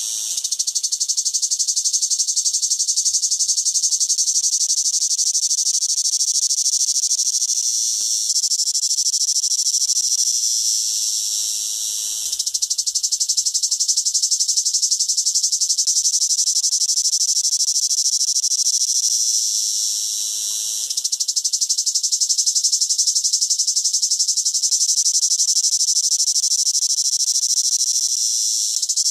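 Cicada calling: a loud, continuous, high-pitched buzz with a fast, even pulse. It eases off a few times, about a third of the way in, near the middle and about two-thirds in, then swells back to full strength each time.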